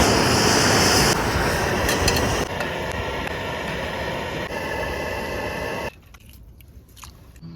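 Bacon and egg sizzling hard over a charcoal grill, a loud steady hiss that shifts in level several times, as if at edits, and cuts off suddenly about six seconds in.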